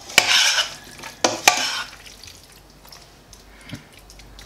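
Salad being tossed with a metal spoon in a stainless steel pot: wet mixing sounds with a few sharp knocks of metal on the pot in the first two seconds, then quieter stirring.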